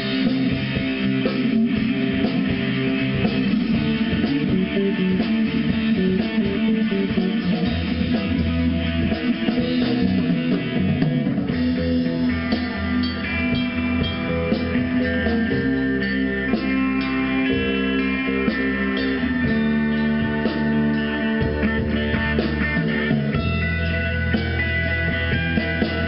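Live rock band playing an instrumental passage with electric guitars and drums, no singing. Higher held guitar notes come in about halfway through.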